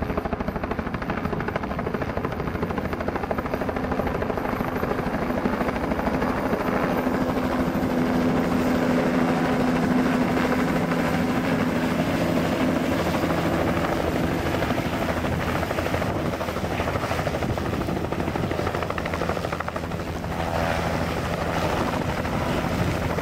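Helicopter rotor and turbine engine running steadily, heard from on board with the doors off, with a fast, even rotor beat under a constant rush of noise.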